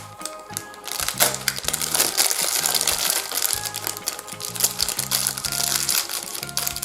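Wrappers crinkling and rustling as small wrapped toy packages are opened, over background music with a stepped bass line.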